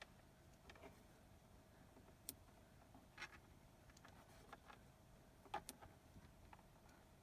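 Near silence broken by a few faint, scattered taps and light rustles of fingers pressing small adhesive cable stickers onto a car windscreen, the clearest about two, three and five and a half seconds in.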